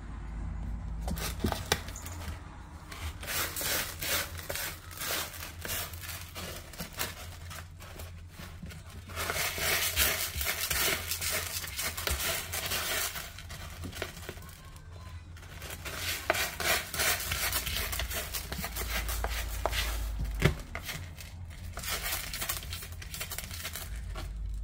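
A cat digging in a plastic litter tray, its paws raking and scratching through loose litter granules in bouts of rapid scratching with short pauses between.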